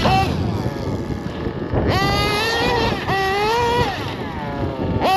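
Samurai RM .21 nitro engine in a Losi 8ight-T truggy revving high as the RC car is driven. It rises sharply in pitch about two seconds in, eases off, revs again for most of a second, then winds down before climbing once more at the end.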